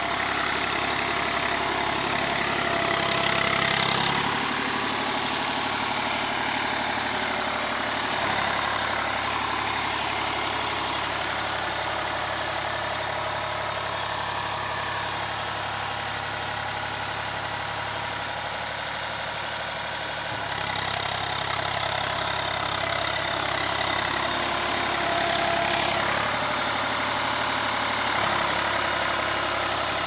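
Diesel engine of an Eicher 368 tractor running as it works through a wet, muddy field. The engine note shifts a few times, at about 4, 8 and 20 seconds in.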